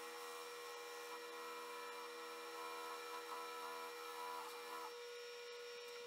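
Jet 1015 mini wood lathe running at a steady speed, a faint motor whine made of several steady tones.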